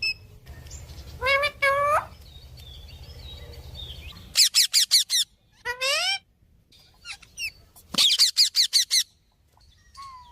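Parrot calling and whistling. It gives two rising whistles about a second in, a fast run of repeated chirps, another rising call, then a second quick chattering run, and ends with a short rising whistle.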